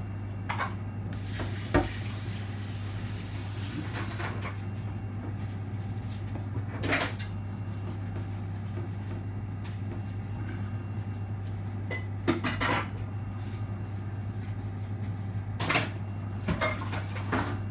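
Scattered sharp clicks and knocks of dishes and utensils being handled in a kitchen, about half a dozen spread out, over a steady low hum.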